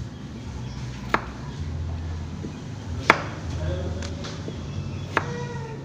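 Kitchen knife chopping peeled potatoes on a cutting board: three sharp knocks of the blade against the board, about two seconds apart.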